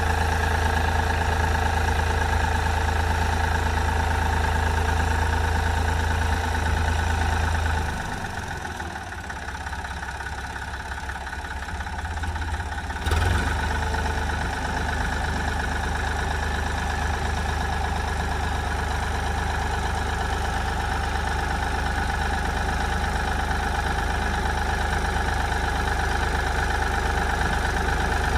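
Ford tractor engine running steadily while ploughing. The sound drops quieter about eight seconds in and returns abruptly about five seconds later.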